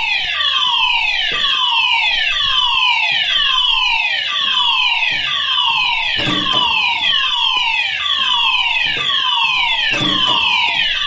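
Electronic fire alarm sounding: a loud pitched tone that sweeps downward, repeating steadily about once a second.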